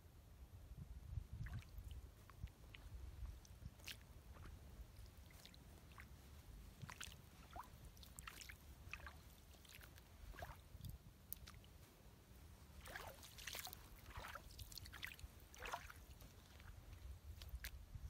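Faint wet squelches, clicks and small splashes, as of footsteps in wet sand and shallow tide-pool water, thickest a little before the end, over a low steady rumble of wind on the microphone.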